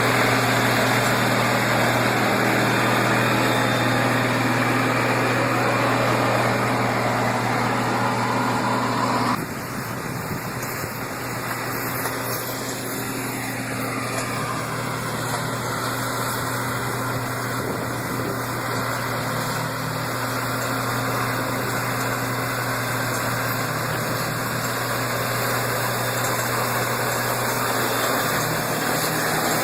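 Heavy construction machinery engines running steadily. About nine seconds in the sound changes abruptly to another, slightly quieter machine, with a brief falling whine just after the change.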